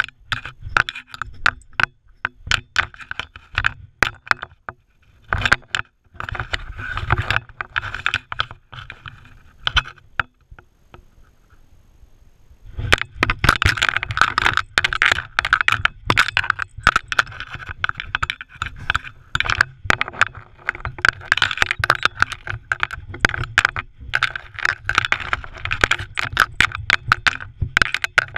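Rapid clattering, scraping and rattling as an Irish Terrier wearing a body-mounted camera scrambles over loose rock and dirt. The camera rattles against the dog at each step. A few seconds of near-lull come before the middle, then the clatter picks up again and keeps on.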